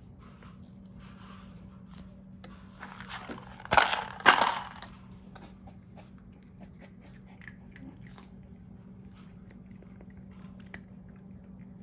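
A cat crunching dry food and working a plastic food puzzle feeder, with small scattered clicks and crunches. Two loud, noisy bursts come just before and just after four seconds in.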